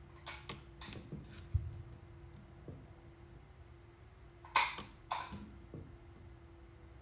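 Sharp snaps of a DIY Arduino car-battery spot welder firing weld pulses through copper probes into nickel strip on a lithium iron phosphate cell. Several small snaps in the first second and a half, then a louder pair about four and a half seconds in.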